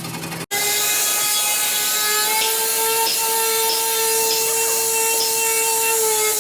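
Handheld electric power tool running at a steady speed, a steady whine over a hiss of abrasion on the work, starting suddenly about half a second in.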